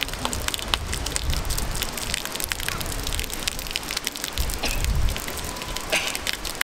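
Fountain water splashing and pattering steadily as the jet falls back into its stone bowl, with a low rumble at times. It cuts off suddenly near the end.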